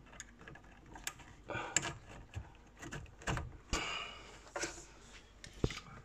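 Handling sounds of boiler pipework and a retaining clip being worked into place at the heat exchanger's pipe joint: irregular small clicks and knocks with a few short scrapes.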